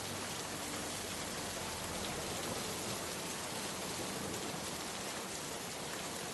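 Heavy rain pouring down in a steady downpour, an even hiss without breaks.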